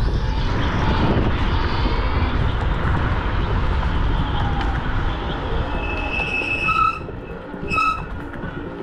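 Heavy wind and road rumble from a moving electric scooter ride. The noise drops about seven seconds in, as a pattern of short, high repeated notes begins.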